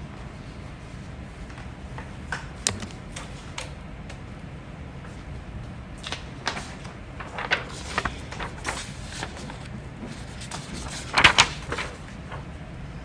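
A person hiccuping: short, sudden hiccups spaced a few seconds apart, the loudest about eleven seconds in.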